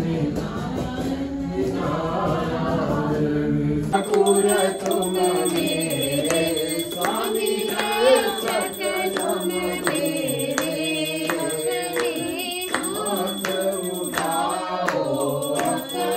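Devotional singing of an aarti hymn with music. About four seconds in the sound changes to a clearer track with a regular beat of sharp strikes under the voices.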